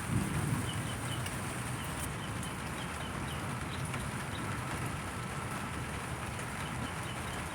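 Steady rain falling, an even hiss, with a brief low rumble in the first half second.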